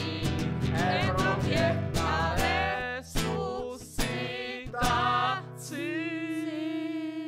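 A song from a live stage musical: voices singing with acoustic guitar and hand drums, with a few sharp hits, ending on a long held note for the last second and a half.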